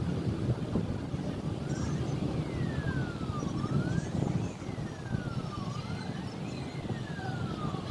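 Airbus A330's jet engines running at low power as it rolls along the runway, a steady low rumble. About two seconds in, a wailing siren starts, rising and falling about once every two seconds.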